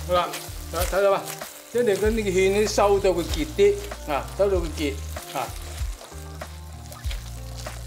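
Chicken and mushroom filling sizzling in a wok while a metal spatula stirs and scrapes it. The cornstarch-slurry sauce is cooking down and thickening.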